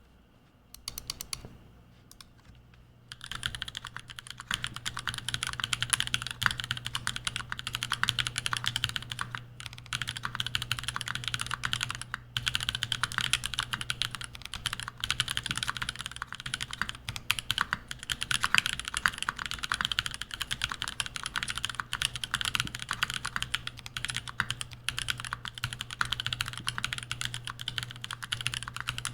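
Typing on a Gok 7v mechanical keyboard with lubed and filmed Gazzew Boba U4T tactile switches in an aluminum plate, under ePBT keycaps. A few single keystrokes come first, then fast continuous typing from about three seconds in.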